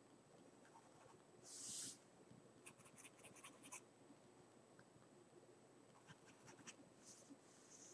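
Faint scratching of a mechanical pencil on paper as light sketch lines go down, in two short runs, with a soft swish about a second and a half in.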